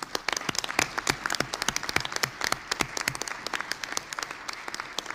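An assembly of seated delegates applauding: many hands clapping at once, loudest in the first couple of seconds and easing a little after that. It is the applause for a vote just announced as unanimously adopted.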